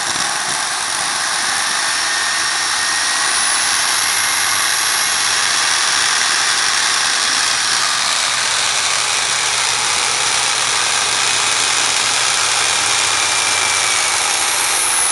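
Small homebuilt gas turbine engine, built on a Subaru Legacy ball-bearing turbocharger core, running steadily with a loud jet hiss and thin whine tones that drift slightly in pitch.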